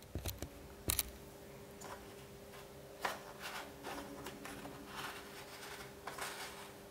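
Hands handling a DeWalt DCM575 cordless chainsaw's black plastic side cover, making a series of sharp clicks and knocks, loudest twice about a second in, with lighter clicking and rattling later on.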